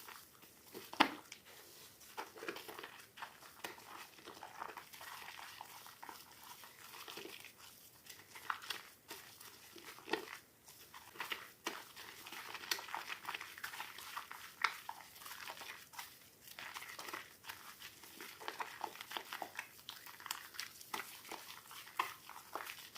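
Soaked soap being worked and crushed by hand, giving a soft, irregular crackling and squishing with sharper clicks every second or so; the loudest click comes about a second in.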